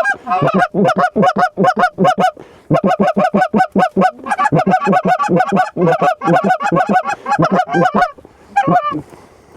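Canada goose calls blown hard and fast, a steady run of short clucks and double clucks at about five or six notes a second, thinning to a few last notes near the end.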